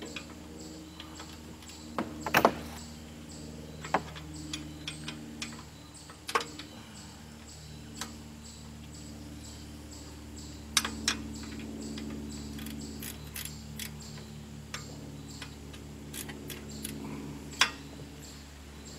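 Scattered metallic clinks and clanks of a wrench working on the base of a Briggs & Stratton engine lying on its side, over a steady low hum.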